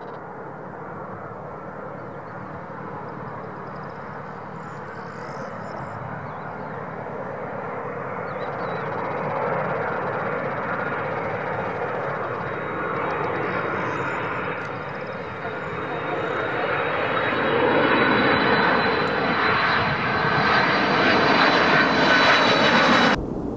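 Boeing 767 twin-engine turbofan jetliner on final approach with gear down, its engine rush growing steadily louder as it closes in overhead. A high steady fan whine rises out of the noise in the later part. The sound cuts off suddenly just before the end.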